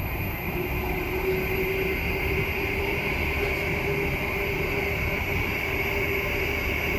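Variable frequency drive's newly fitted cooling exhaust fan running steadily: a constant whir with a steady hum and a higher whine.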